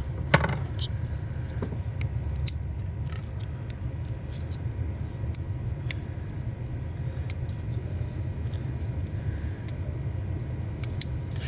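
Scattered small sharp clicks and ticks of a pick tool working at a plastic coil pack connector to release its clip, over a steady low rumble.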